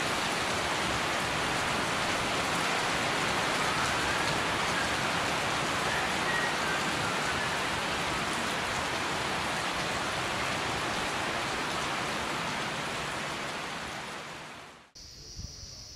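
Heavy tropical rain pouring steadily onto leaves, grass and puddled ground, a dense even hiss that fades out near the end.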